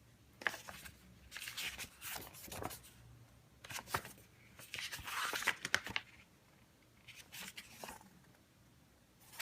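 Paper rustling from a comic book being handled and its pages turned, in several short bursts with quiet gaps between them.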